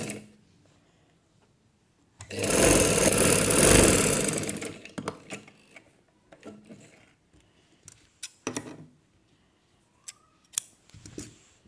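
Motorised domestic sewing machine running for about two and a half seconds, stitching the fabric, then stopping. Scattered clicks and rustles follow as the fabric is handled.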